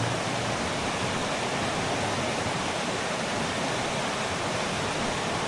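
Steady rushing of a fast-flowing stream or waterfall.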